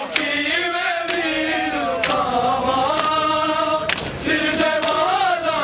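A group of men chanting a Punjabi noha in unison, held sung lines rising and falling. Sharp hand slaps on bare chests (matam) land about once a second, keeping the beat.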